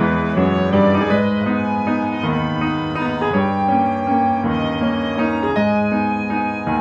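Background piano music, a melody over held chords, playing steadily.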